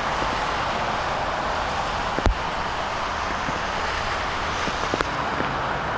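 Steady hiss of heavy rain and tyres on wet pavement as a pickup truck drives off, with a few sharp taps, the loudest about two seconds in.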